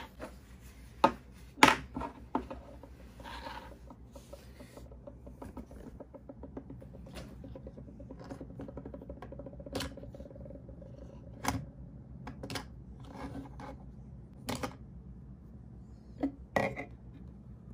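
Plastic clicks and taps from handling the bare white internal chassis of an Oral-B children's electric toothbrush on a tabletop, about eight sharp knocks spread out. A faint steady hum runs through the middle stretch.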